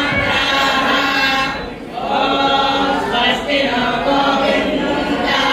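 Many voices singing a devotional chant together in long held phrases, with a brief break in the singing just before two seconds in.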